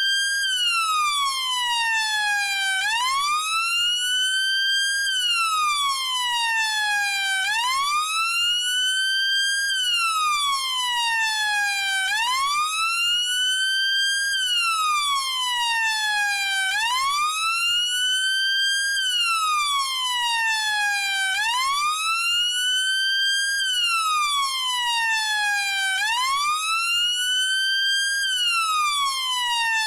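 Chinese police car siren in a steady wail, its pitch sweeping up for about two seconds and down for about two and a half, repeating without a break.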